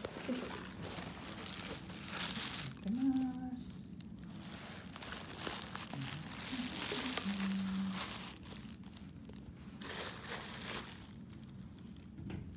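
Crinkling and rustling handled close to the microphone, in several bursts, with a short pitched call that rises and then holds about three seconds in.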